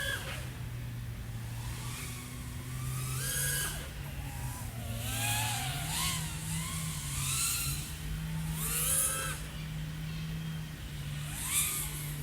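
Brushless motors and propellers of a 3.5-inch FPV quadcopter (iFlight AOS 3.5 V5, XING 1504 3100KV motors) whining, the pitch swooping up and down in repeated throttle punches a couple of seconds apart, over a steady low hum.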